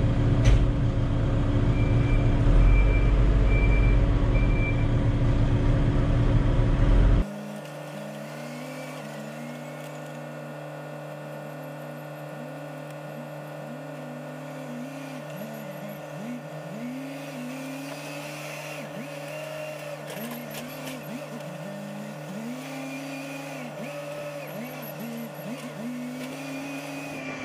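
Hidromek 140LC excavator running: a loud, deep diesel engine sound with four short beeps a few seconds in. Then the sound cuts abruptly to a quieter, steady engine hum, over which the pitch repeatedly rises and falls as the machine works.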